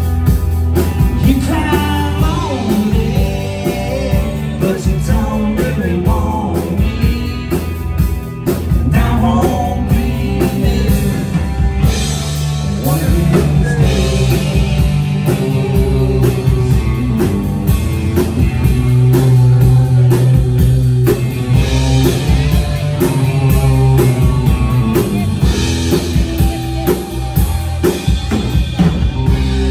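Live Red Dirt country-rock band playing, with a singing voice over electric guitar, bass and drum kit.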